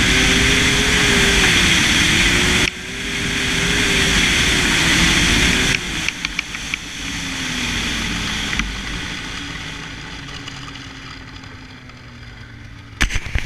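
Polaris Fusion snowmobile's two-stroke engine running under throttle with wind rush, easing off briefly about a third of the way in. About halfway through it drops off and the engine slows, winding down quieter toward idle. A few sharp clicks come near the end.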